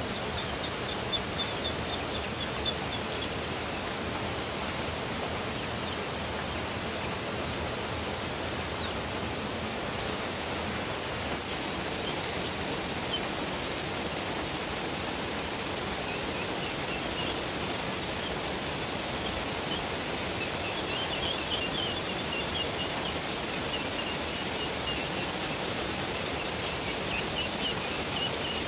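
Steady, even rushing outdoor noise, like running water or wind, with faint high chirping calls near the start and again through the second half.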